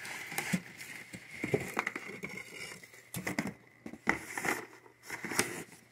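Cardboard puzzle boxes being shuffled and pulled out of a cardboard carton: irregular rustles, scrapes and light knocks of cardboard on cardboard.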